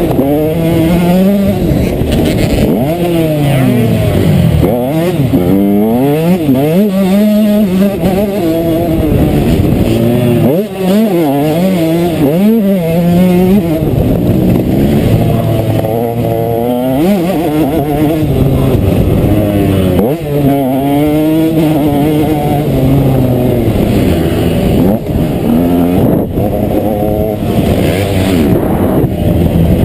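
KTM 125 SX two-stroke motocross engine running hard, its pitch climbing and dropping again and again as the throttle is opened and closed.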